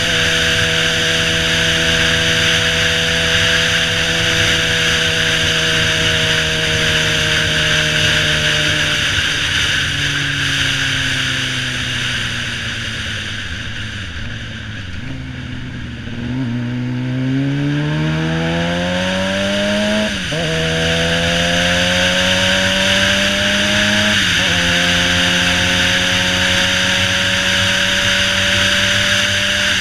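Suzuki GSX-R600 inline-four engine heard from the rider's seat: it holds a steady cruise, the revs fall as the bike slows, then climb again through two upshifts, about two-thirds and four-fifths of the way through, before settling into a steady cruise. Heavy wind noise on the microphone runs under it and eases while the bike is slowest.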